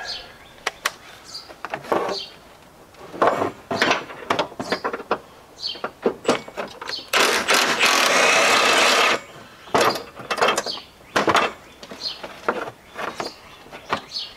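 Cordless stubby impact wrench hammering on a bumper bolt in one steady run of about two seconds near the middle. It is surrounded by shorter bursts, sharp clicks and metal handling noises as the wrench is fitted to the bolts.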